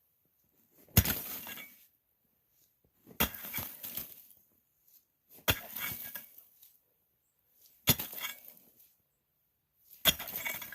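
A Pulaski axe chopping into a wall of solid ice, five blows about two seconds apart. Each is a sharp strike followed by the crackle of ice breaking away.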